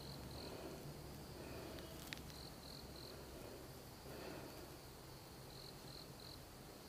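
Crickets chirping at night: short high-pitched pulses in groups of two or three, repeating every couple of seconds, over a faint steady low hum.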